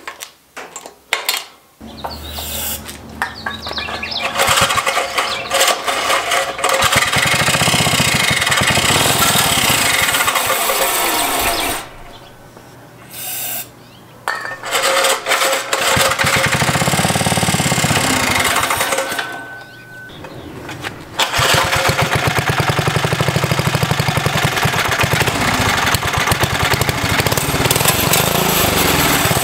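3 hp Briggs & Stratton single-cylinder mini bike engine running in spells, rapid and uneven. It starts about two seconds in, dies back about twelve seconds in and again near twenty seconds, and picks up each time. It will not keep running, which the owner lays to a carburettor he cannot tune and a leaking gasket.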